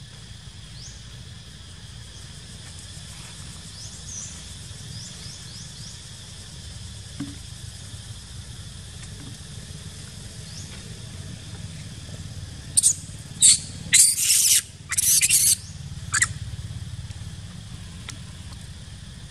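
Macaque screaming: a run of five shrill cries over about three and a half seconds, starting a little past the middle.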